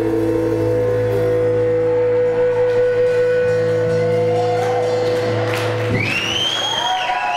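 Live rock band letting its closing chord ring out on electric guitars, a steady held drone, with a high rising squeal joining about six seconds in.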